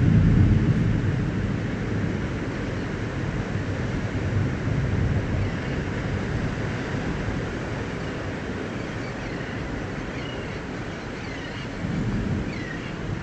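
Thunder rumbling low and fading over the first couple of seconds, over a steady wash of wind and surf; another low rumble swells near the end.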